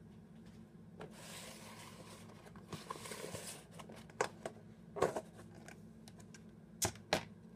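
Clear plastic dome lid being handled and lifted off a plate: a crinkling rustle of thin plastic, then several sharp plastic clicks and snaps, the loudest two near the end.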